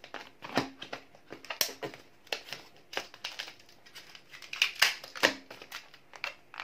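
Black latex twisting balloons being tied and twisted by hand: irregular short, sharp sounds of rubber rubbing and stretching, loudest in a cluster about five seconds in.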